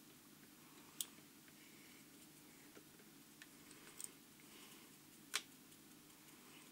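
Near silence with a few small sharp clicks from hands handling fly-tying tools and materials at a vise. Three clicks stand out, the loudest about five seconds in.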